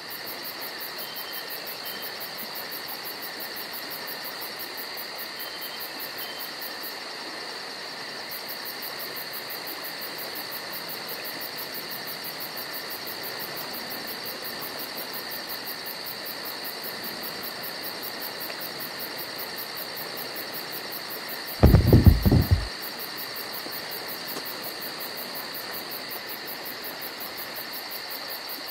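Steady night chorus of crickets and other insects chirping, with a short cluster of loud, dull thumps about three quarters of the way through.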